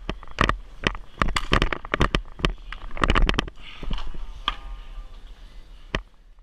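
Roller hockey play on a wooden rink floor: an irregular run of sharp clacks and knocks from sticks, puck and inline skates, over a low rumble, loudest around the middle.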